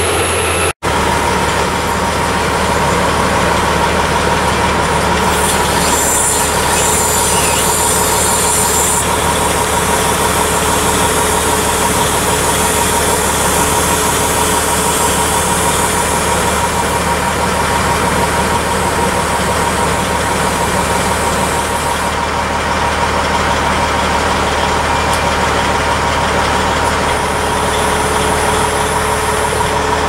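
Albach Diamant 2000 wood chipper's 850 HP engine running steadily, with a constant whine above the engine note. The sound drops out briefly less than a second in.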